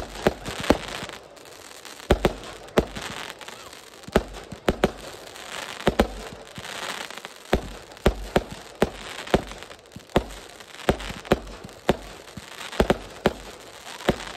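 Aerial fireworks launching and bursting: an irregular run of sharp bangs, about one or two a second, with hissing crackle between them.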